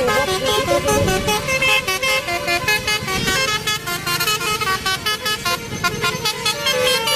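Bus 'telolet' Basuri musical air horn playing a quick melody of short, stepping notes that cuts off abruptly at the end.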